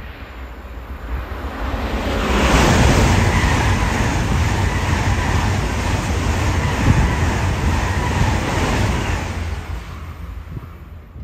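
A train passing by: a rumbling, rushing noise builds over about two seconds, stays loud for about seven seconds, then fades away.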